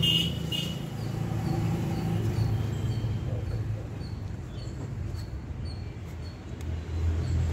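Cloth rag rubbing as it wipes out a car's intake manifold opening. Underneath runs a steady low hum, and faint short high chirps come about twice a second through the middle.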